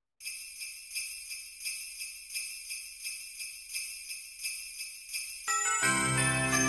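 Sleigh bells shaken in a steady beat, about one shake every 0.7 seconds, as the opening of a music track. About five and a half seconds in, the full song comes in with bass and sustained notes under the bells.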